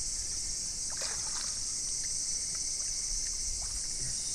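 Steady high-pitched chorus of insects with a few faint small water splashes about a second in.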